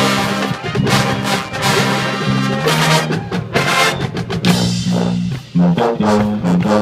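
Collegiate marching band playing: brass with a driving drumline of snare, tenor and bass drums.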